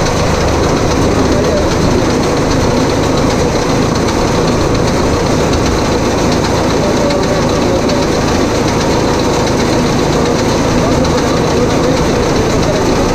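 Tractor engine running steadily while driving a round baler through its PTO. The baler's pickup and chamber rollers run along with it as hay is gathered into a bale.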